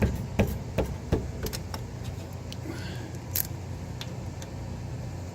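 Long-handled socket ratchet working a 14 mm brake caliper bolt loose: a run of sharp metal clicks, two or three a second for the first couple of seconds, then a few scattered clinks of metal on metal.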